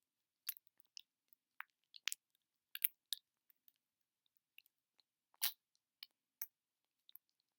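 Close-miked ASMR sticky sounds: about twenty short, irregular, tacky clicks and crackles with silence between them. The loudest is a slightly longer crackle about five and a half seconds in.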